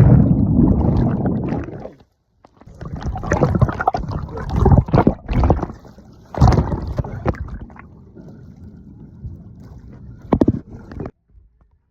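Seawater sloshing and gurgling close to the microphone in uneven surges, with a sharp knock near the end before the sound cuts off suddenly.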